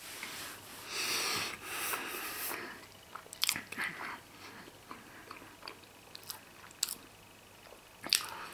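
A person chewing a mouthful of Emmentaler cheese, with soft wet mouth sounds and a few short clicks. Near the end there is a sharp click as he bites into the block again.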